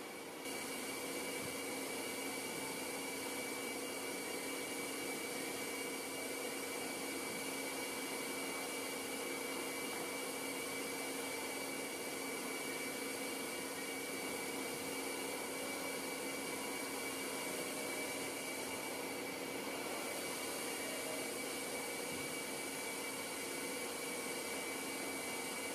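Correa Axia 85 CNC milling and boring machine running under power: a steady mechanical whir and hum with several steady tones. It steps up a little in loudness about half a second in.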